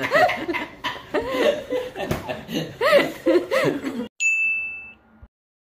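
Laughter and chuckling with short rising and falling peals, then about four seconds in a single bright electronic ding, the sound effect of a subscribe-button end screen.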